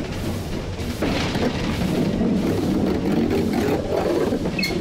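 Steam locomotive running, heard from its cab: a 1943 Davenport-built US Army Transportation Corps engine. A steady rumble and clatter of the engine and wheels on the track, getting louder about a second in, with a brief high squeal near the end.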